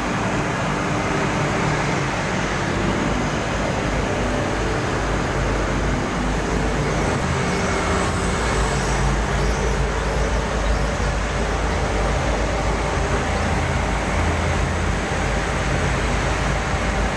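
Industrial furnace running: a steady loud roar with a low hum underneath.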